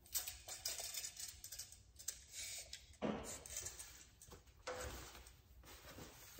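Handling noise from a sheet-metal drill shelf in its foam packaging wrap being held and shifted while a tape measure is laid across it: rustling and light knocks, loudest at the start, about three seconds in and near five seconds.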